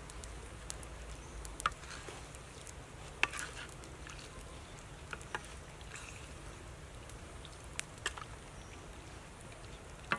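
A wooden ladle stirring eggs and shells in a steel wok of simmering liquid: scattered, irregular clicks and knocks over a low steady hiss.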